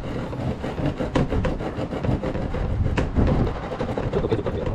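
Hand pull saw cutting through the hard plastic wall of a tool chest, a steady run of rasping back-and-forth strokes. The sawing stops just at the end.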